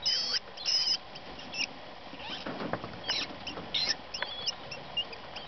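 Newborn rabbit kits squeaking in the nest: a scattered series of short, high squeaks, some bending in pitch. These are the normal sounds of kits just born and breathing.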